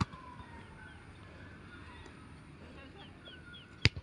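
Two sharp thumps of a football being struck, a small one at the start and a much louder one shortly before the end.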